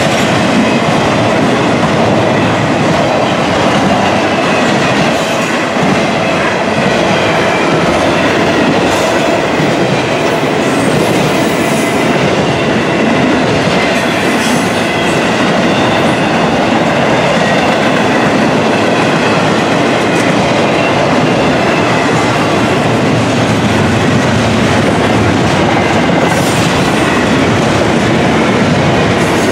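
Double-stack intermodal container cars of a freight train rolling past at close range: a loud, steady rumble of steel wheels on rail with clickety-clack over the rail joints.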